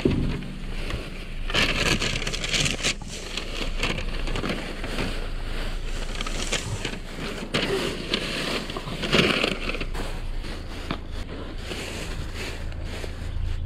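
Thin plastic trash bags crinkling and rustling in irregular bursts as gloved hands dig through them, over a low steady hum.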